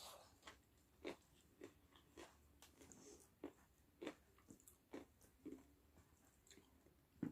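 Close-up chewing of ayam geprek, smashed fried chicken: a string of short, soft crunches and mouth clicks about twice a second, the loudest right at the end.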